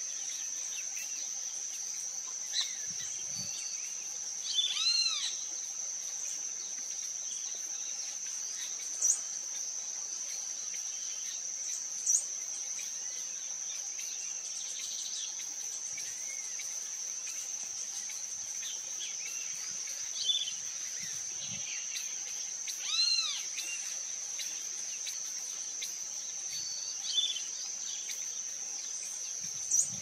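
A steady high insect drone from crickets or cicadas, with bird calls at intervals: a few arched, rise-and-fall calls with overtones, the clearest about 5 s and 23 s in, and several short sharp notes.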